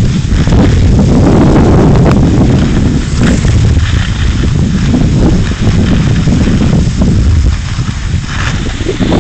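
Strong wind buffeting the microphone of a camera carried downhill on a ski slope: a loud, steady low rumble with hiss above it.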